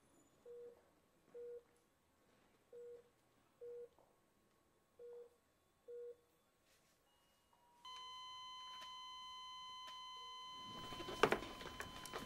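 Hospital patient monitor beeping in slow pairs of short low tones, then about eight seconds in a continuous high alarm tone starts and holds. Near the end, a loud burst of rustling and knocks as someone gets up in a hurry.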